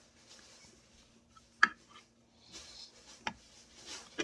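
Two sharp clacks of toy kitchenware, about a second and a half apart, with light rubbing and rustling between them.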